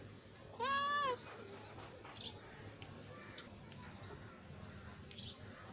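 A cat meows once, a loud meow about half a second long that rises and then falls in pitch.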